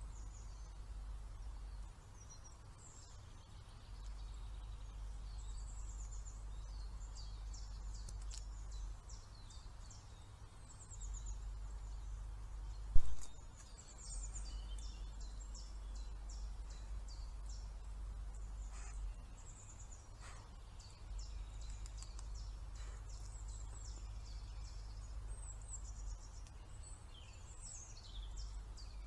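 Songbirds singing, many short phrases and trills, over a low uneven rumble, as picked up by a trail camera's microphone. About halfway through there is one sharp, loud knock as a roe deer brushes close past the camera.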